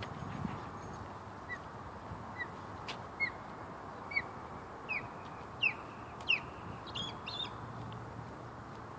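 Osprey calling from its perch: a series of about nine short, high whistled chirps a little under a second apart, growing louder and slightly higher in pitch, ending in a couple of quicker doubled chirps.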